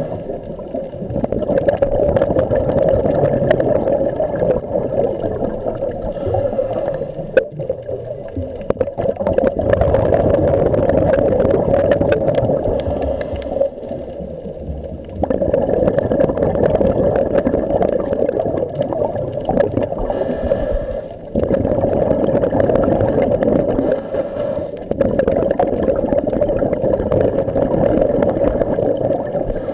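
Underwater sound through a camera's housing: a steady muffled drone, broken every six or seven seconds by a second-long hissing rush of a scuba diver's exhaled regulator bubbles.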